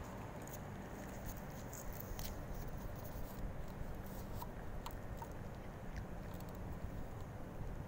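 A cat crunching dry kibble: small, irregular clicks of chewing over a low, steady background rumble.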